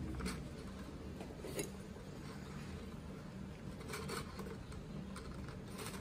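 Faint rustling and light clicks of a paper coffee filter being opened and set into a plastic funnel, then a metal spoon scooping ground coffee from a plastic tub into it, over a low steady hum.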